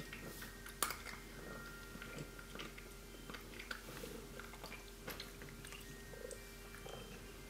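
Faint scattered clicks and soft rustles of three-week-old kittens shifting about on towels in a cardboard box, over a steady low hum.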